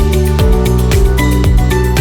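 Electronic background music with a steady beat: a kick drum about twice a second under held synth notes.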